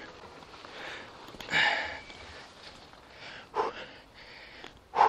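A beekeeper's puffs of breath while carrying a heavy box of honeycomb: a loud breathy huff about a second and a half in, then two shorter, sharper ones near the end.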